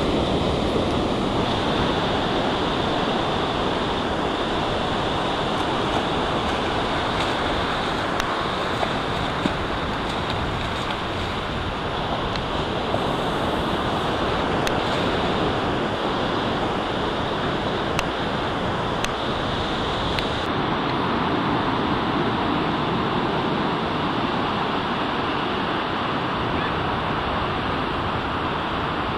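Steady rush of ocean surf breaking on the beach, with wind on the microphone.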